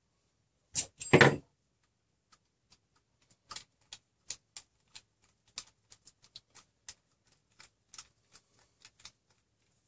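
Two sharp knocks of tools and parts on a workbench about a second in, then light, irregular clicks and taps as a screwdriver works a 30 mm M3 bolt into the plastic extruder body.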